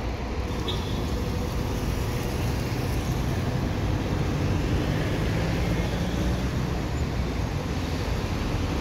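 Diesel engine of a Marcopolo double-decker coach running as it drives slowly up close, a steady low rumble that grows slightly louder as it nears.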